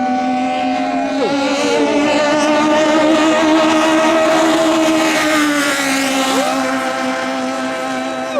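Two turbo-diesel longtail racing boats running flat out side by side, their high engine notes held steady, with one tone dropping sharply in pitch about a second in and another near the end.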